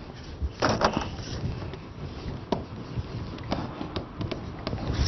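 Marker pen writing on a whiteboard: a run of short, irregular strokes and taps as the words are written out.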